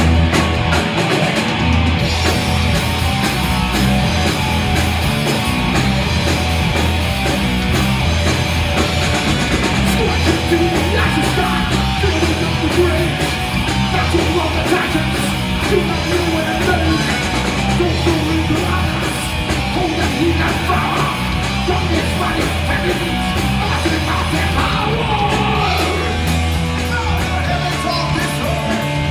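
Live heavy metal band playing loud: electric guitars, electric bass and a drum kit.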